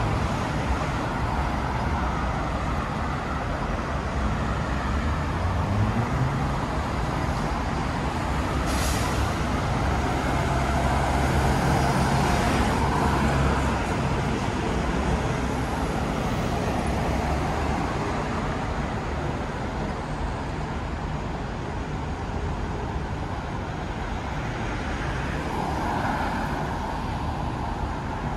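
Street traffic at a city intersection: cars and a truck passing with a steady engine and tyre noise. A vehicle's engine rises in pitch as it pulls away about five seconds in, and there is a brief hiss about nine seconds in.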